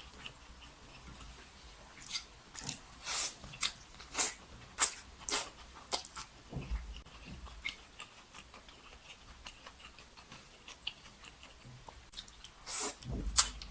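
A person chewing and smacking food close to the microphone: a run of short, wet mouth clicks a couple of seconds in, a quieter stretch of soft chewing, then more smacks near the end.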